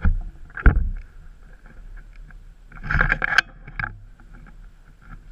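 A few knocks and rustling thumps, with one at the start, one just under a second in, and a louder cluster about three seconds in ending in a sharp click.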